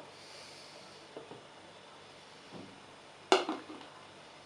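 A sharp knock of glass about three seconds in, with a few faint taps before it, as a small glass bottle of radish juice is handled.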